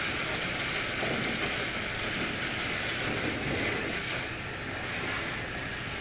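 Battery-powered TrackMaster toy train engines running along plastic track: a steady mechanical running sound of small geared motors.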